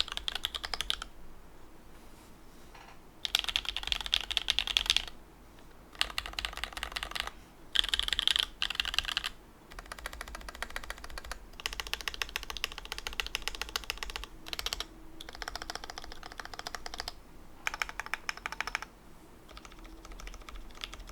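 Mechanical keyboard with lubed and filmed C3 Tangerine linear switches on a carbon fibre plate, typed on in quick runs of keystrokes with short pauses between them.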